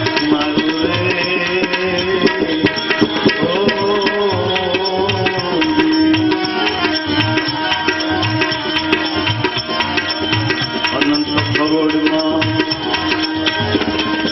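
Instrumental interlude of a devotional bhajan between sung verses: tabla keeping a steady beat under a sustained melody line with held notes and slides.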